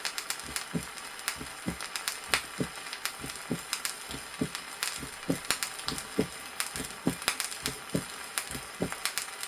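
A woman's heart with mitral valve disease, heard at the apex as a steady rhythm of low thuds, its first heart sound split in two. It plays from a 1963 vinyl teaching record, with surface crackle and clicks throughout.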